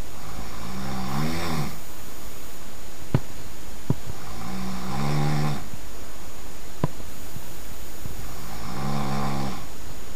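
A sleeping person snoring loudly: three long snores about four seconds apart, each a low buzzing tone that bends upward, with a few short clicks between them.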